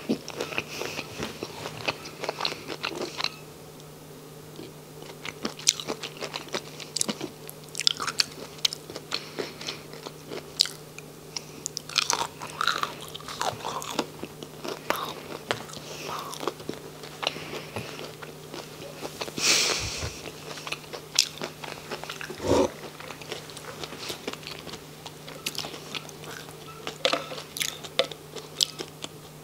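Close-miked chewing and biting of crunchy fried onion rings, with irregular crisp crunches and wet mouth sounds.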